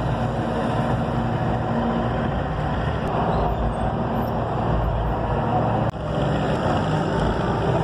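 Steady street noise, with traffic rumble dominant and a brief break about six seconds in.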